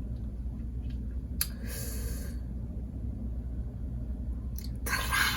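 A person breathing out audibly twice, once about a second and a half in and again, louder, near the end, each with a small mouth click before it, over a steady low hum.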